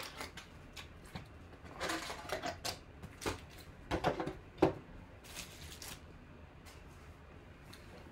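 Foil trading-card packs rustling and clacking as they are pulled out of a cardboard hobby box and stacked on a table: a run of short handling clicks and crinkles over the first five or so seconds, fading to faint handling after that.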